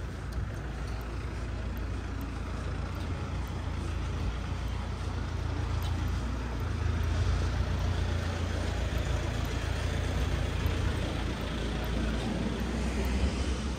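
A heavy road vehicle running past with a low engine sound that grows louder about halfway through and then eases off.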